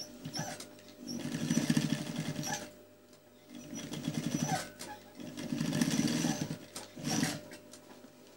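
Industrial sewing machine stitching through quilted jacket lining in four short runs, each starting and stopping, the last one brief.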